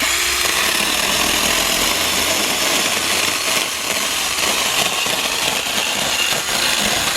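Tomyvic 6-inch cordless mini chainsaw starting suddenly and running steadily, its battery-driven chain cutting through wood.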